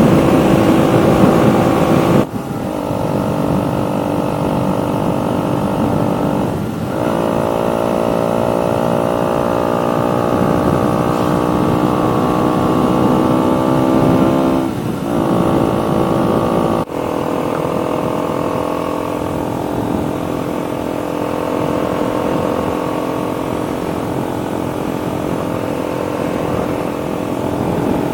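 KTM 125 Duke's single-cylinder four-stroke engine running through an aftermarket full exhaust system while under way. The pitch climbs steadily between several short breaks that sound like gear changes.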